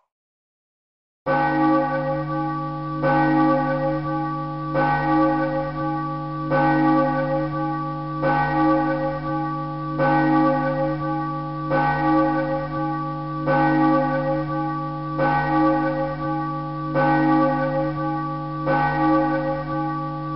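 A bell tolling slowly and evenly, a stroke about every 1.7 seconds, each ring fading into the next over a steady low hum. It starts about a second in, after silence.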